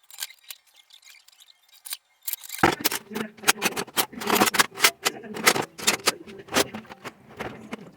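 Brisk, irregular scratching and clicking of hands working on small hard parts, starting about two and a half seconds in after a faint stretch.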